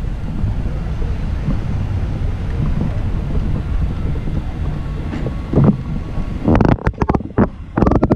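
Wind rumbling on a camera microphone with a steady low roar. About two-thirds of the way in, a run of loud, irregular crackling bursts starts.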